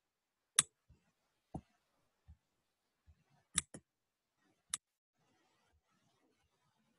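A handful of isolated sharp clicks on a quiet room background: the loudest less than a second in, another about a second later, a quick pair in the middle and one more soon after.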